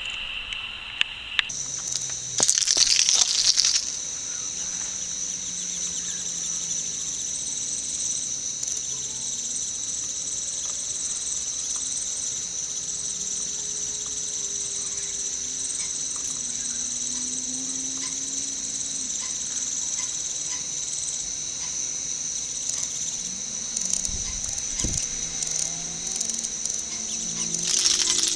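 Steady high-pitched drone of insects. A louder hiss cuts in for about a second, a couple of seconds in, and again near the end.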